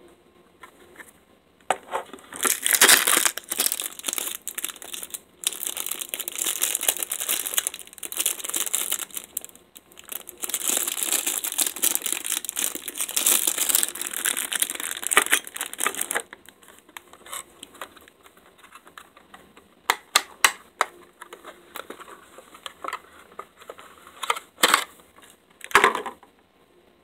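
Clear plastic packaging crinkling and rustling as hands unwrap it, with two long spells of dense crinkling. In the last third it thins out to scattered sharp clicks and short rustles.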